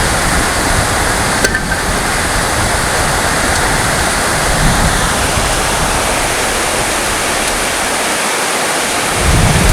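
Heavy rain falling in a steady, dense hiss, with the low end swelling near the end.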